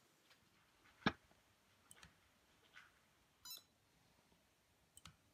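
Techkon SpectroDens handheld spectrophotometer being scanned along a row of colour patches on a printed test chart. A sharp click comes about a second in and a few faint ticks follow. A short electronic beep about three and a half seconds in marks a row being read.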